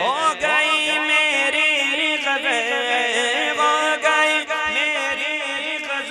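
A man's voice singing an unaccompanied Urdu naat, drawn out in long ornamented runs without words. Backing voices hold a steady low drone underneath.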